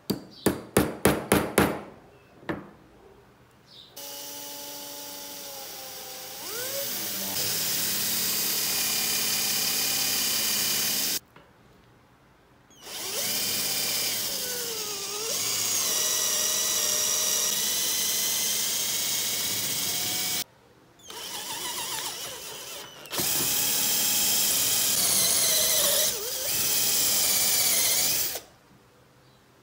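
About seven quick hammer taps on a nail set into a wooden board, then a cordless drill boring into the wood in four long runs with short stops between, its whine dropping in pitch now and then as the bit bites.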